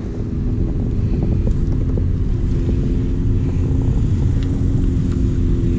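Kayak drive running with a steady hum of several tones, under a low rumble of wind on the microphone, as the kayak moves across the water.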